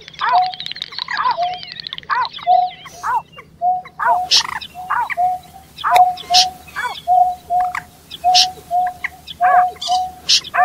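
Marsh birds calling in a fast, even series: a short flat note alternating with rising-and-falling chirps, two or three a second, a mix of swamphen, snipe and painted-snipe calls. A high warbling trill runs over the first two seconds, and sharper high calls join from about four seconds in.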